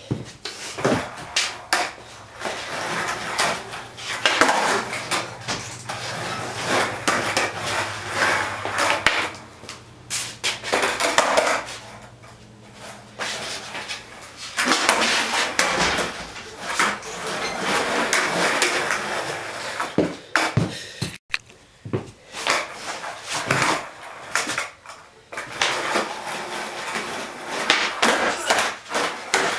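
Skateboard rolling on a garage floor, with repeated sharp clacks and slaps of the board popping, flipping and landing during flat-ground tricks.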